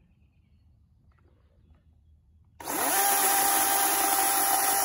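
DeWalt cordless electric chainsaw starting about two and a half seconds in: the motor whine rises quickly, then holds steady as the chain runs into a tree branch.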